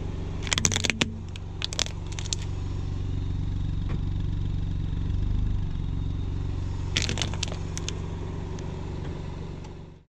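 Plastic toy cars cracking and snapping under a car tyre, in short clusters of cracks about half a second in, around two seconds and again at about seven seconds, over the steady low hum of the car's engine running.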